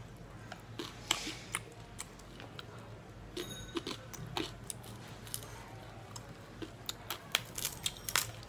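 Close-up eating sounds: irregular small clicks and smacks of chewing, with flatbread being torn by hand, over a steady low hum.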